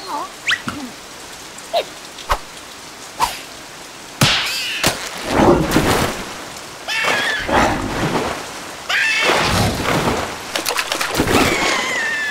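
Cartoon rain sound effect: scattered single drips at first, then about four seconds in a sudden heavy downpour that comes in three long surges. A few high wavering sounds rise over the downpour.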